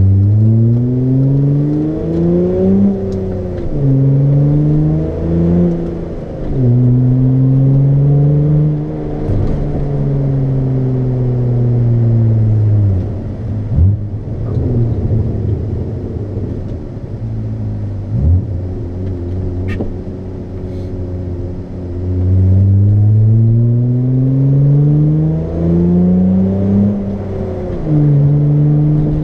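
Straight-piped Hyundai Tiburon's exhaust heard from inside the car while driving. The engine note climbs as it accelerates and drops at each upshift, then falls away slowly and holds a low steady drone for several seconds. It climbs again near the end, with another shift just before the end.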